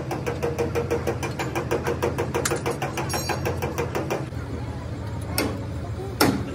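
Heavy machine's diesel engine idling with a fast, even clatter of about eight knocks a second, which fades out about four seconds in. Near the end come two sharp metallic clanks.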